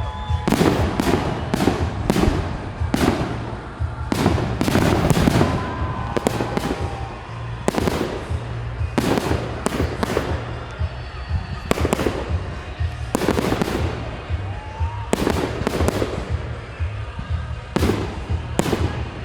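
Fireworks display: aerial shells bursting again and again, in dense clusters of bangs with short lulls between them.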